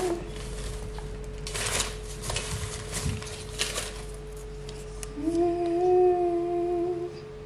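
Plastic packaging and a shopping bag rustling with a few light knocks as groceries are unpacked onto a counter. About five seconds in, a long hummed note is held for about two seconds.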